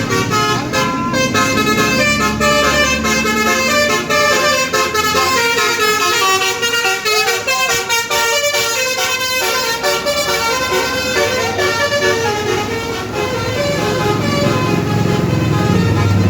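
A bus's multi-trumpet basuri telolet horn, a roof set of about twelve horn trumpets, playing a fast tune of stepped notes, with a bus engine running underneath that grows louder near the end.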